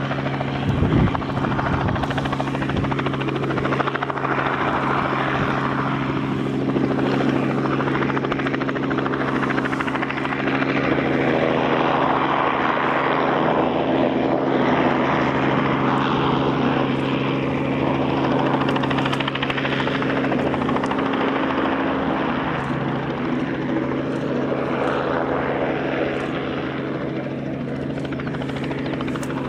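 Airbus A350-900's Rolls-Royce Trent XWB jet engines running at low thrust while taxiing: a steady hum with a rushing noise that swells and fades.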